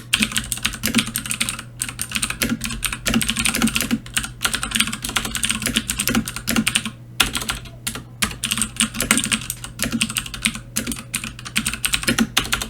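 Mechanical keyboard with clicky Cherry MX Blue switches being typed on: a fast, dense run of sharp key clicks with a few brief pauses, over a low steady hum.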